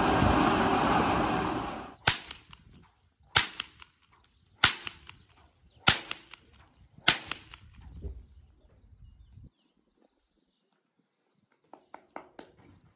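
Steady rushing blower fan of an inflatable tube man for about two seconds, cut off abruptly. Then a whip is cracked five times, sharp single cracks about 1.2 seconds apart.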